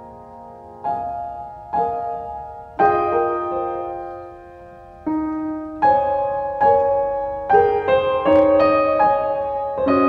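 Slow background piano music: chords struck one after another, each left to ring and fade away, coming closer together near the end.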